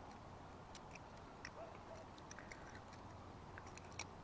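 Cheap butterfly knife trainer being flipped: faint, irregular clicks as the handles swing and tap against each other, a few louder ones near the end.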